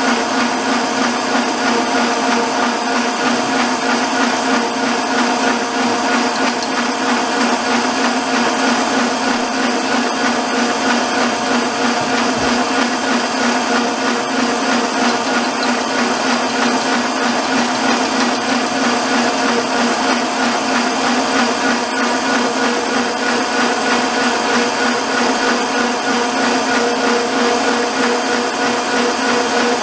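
Electric stand mixer running steadily at speed, its whisk beating cream into chantilly in a stainless steel bowl: a constant motor hum with an even whirring hiss.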